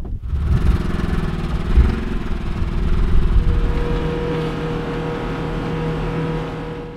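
Polaris General side-by-side UTV engine pulling away and running, heard from inside the cab; its pitch rises and falls over the first few seconds, then holds steady.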